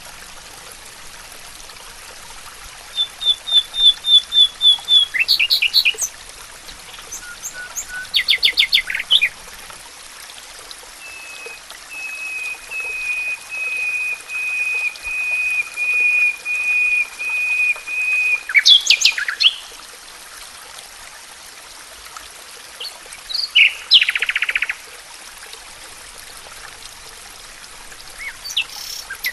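Songbirds singing in a forest: a short run of quick high notes, a fast trill, then one bird repeating the same note about twice a second for several seconds, with other chirps scattered through, over a steady background hiss.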